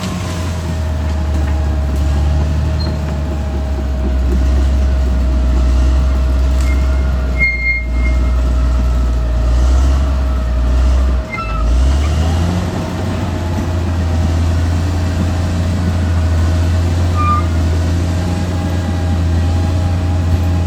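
Caterpillar D6R XL bulldozer's diesel engine running, a steady low drone with a constant whine over it. The drone drops out briefly about eleven seconds in and then picks up again, and a few short high squeaks come through around the middle.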